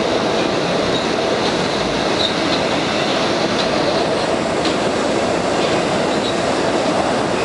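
1965 PA-1 PATH subway car running at speed through a tunnel, heard from inside the car: a loud, steady rumble of wheels on rail, with brief high squeaks every second or so.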